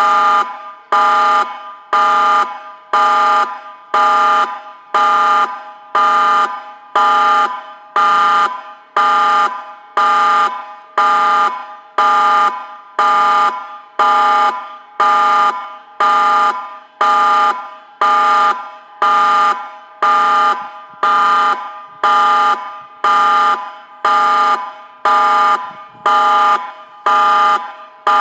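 Christchurch tsunami warning siren sounding a test: a loud, level-pitched tone of several notes at once, in short blasts about once a second, each fading slightly before it cuts off.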